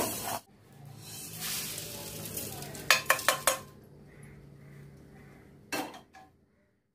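Mustard seeds crackling and sizzling as they roast in a wok, stirred with a wooden spatula: the crackling shows they are done. About three seconds in come a few quick sharp clinks of the pan, and another knock near the end.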